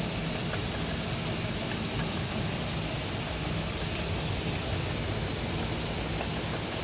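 Bottle labeling machine and its conveyor running steadily: a continuous, even mechanical noise with a few faint ticks.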